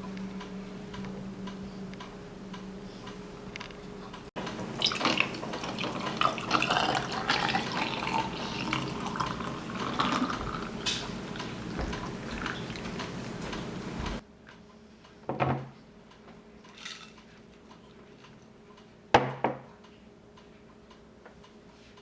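Kitchen sink sounds: water running and dishes clinking. The sound cuts off abruptly twice, ending in a quieter stretch with two separate clinks.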